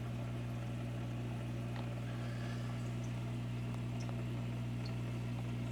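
Steady low electric hum, even and unchanging, with a few faint clicks.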